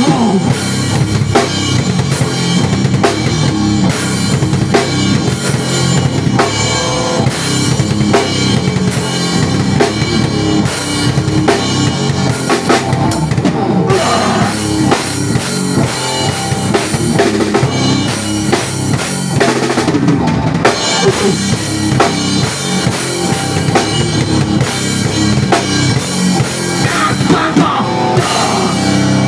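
Drum kit played hard in a live band jam: bass drum, snare and rimshots keeping a fast, busy beat, with amplified stringed instruments underneath.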